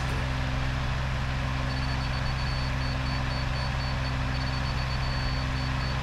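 Heavy equipment engine running at a steady speed, with a faint, high, intermittent beep from about two seconds in.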